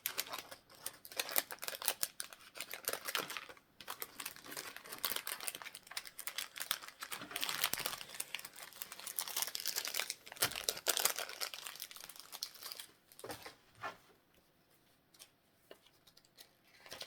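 Plastic packaging crinkling and rustling as it is handled, with some tearing, busy for about thirteen seconds and then only a few scattered handling sounds.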